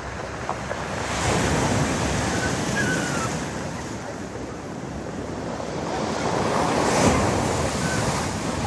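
Storm waves breaking on a pebble beach: a steady rush of surf that swells into two loud crashes, one about a second in and one about seven seconds in.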